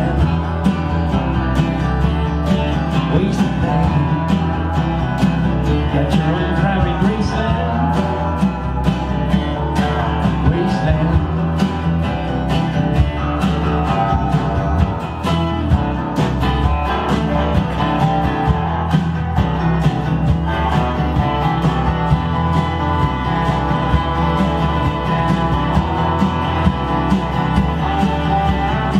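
Live folk-country band playing an instrumental break: acoustic guitars, bass and drums keeping a steady beat, with a Weissenborn lap slide guitar and a keyboard playing over them, the slide guitar gliding between notes.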